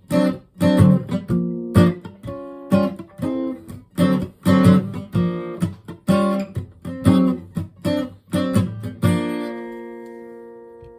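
Acoustic guitar strummed in a steady rhythm as the song's instrumental outro, ending about nine seconds in on a final chord that rings out and fades.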